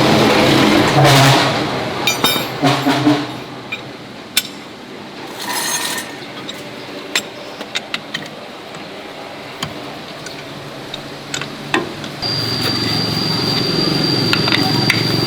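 Metal parts and tools clinking and knocking during repair work. About twelve seconds in, a motor starts and runs steadily with a low hum and a thin high whine.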